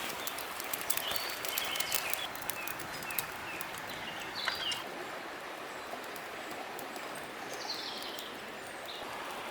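A river flowing steadily, with short high bird chirps scattered through the first half and again near the end, and a few sharp clicks early on.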